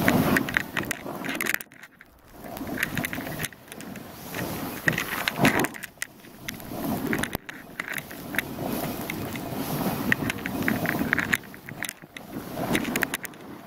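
Skis sliding and scraping over packed snow, with a crackling edge sound that swells and fades every couple of seconds as the skier turns downhill.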